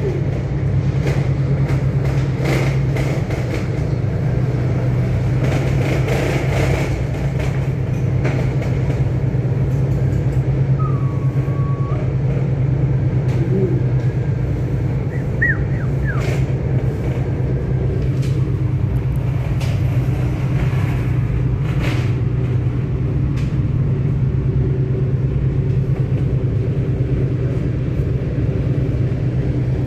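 Steady low droning hum and rumble inside a moving aerial tramway cabin, with a few faint clicks and brief squeaks midway.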